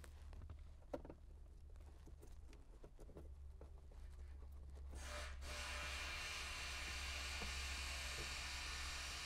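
Faint clicks and scrapes of a hand-turned Phillips screwdriver driving screws into the bottom of a car's radio trim, over a low steady hum. A steady hiss comes in about five seconds in.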